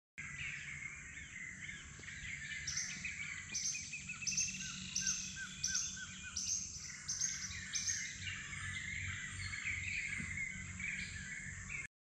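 Amazon rainforest birds calling over a steady high insect drone, with a run of about eight sharp, evenly spaced high calls in the middle.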